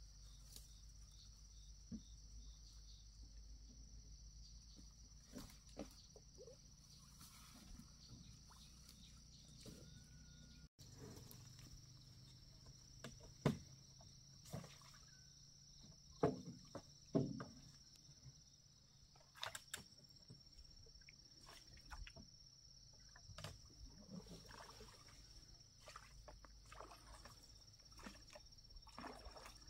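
Faint, steady insect chirring in one high continuous tone, with a scatter of sharp knocks and clatters, the loudest bunched about halfway through.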